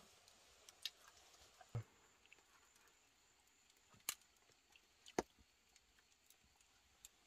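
Near silence broken by a handful of scattered sharp clicks and pops, about five over several seconds, the second and fourth the loudest.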